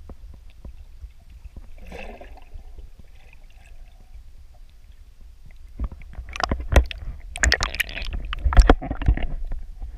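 Muffled underwater rumble and small ticks picked up by a submerged camera, then from about six seconds in a loud run of splashing and crackling water as the camera moves up toward the surface, fading just before the end.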